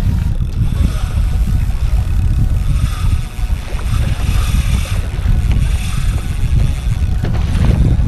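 Wind buffeting the microphone: a loud, steady low rumble, with the hiss of choppy sea around a kayak.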